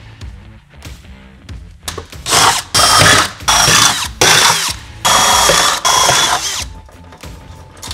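Cordless drill boring holes through the sheet metal of a van's rear door: six short whining bursts with brief stops between them, starting about two seconds in.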